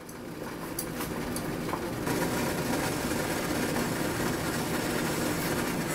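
Water boiling in a stainless saucepan: a steady bubbling rumble that fades in over the first two seconds and then holds level, with a few light clicks about a second in.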